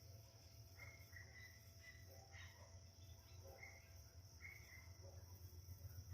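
Faint countryside ambience: a steady high-pitched drone of insects, with short chirps repeating about once a second and a low rumble underneath.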